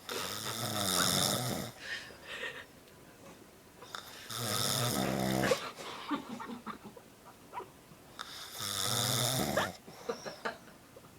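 A man snoring in his sleep: three long snores about four seconds apart, each lasting a second or more, with quiet breathing gaps between.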